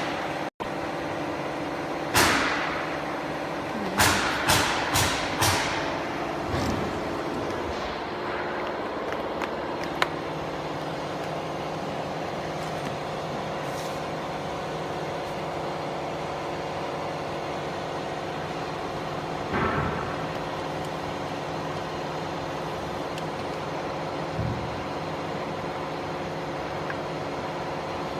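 Steady machine hum of a running fiber laser marking machine, with a cluster of sharp clacks a few seconds in and another single knock about two-thirds through.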